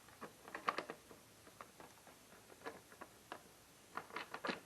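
Scattered light clicks and taps as the air filter cover and filter are handled on a Briggs & Stratton push mower engine, bunched about half a second in and again near the end.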